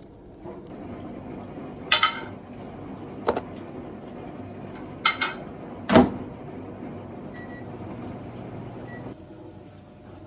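Kitchen handling sounds: four sharp clacks, like cupboard doors or dishes, over a steady appliance hum that cuts off suddenly near the end.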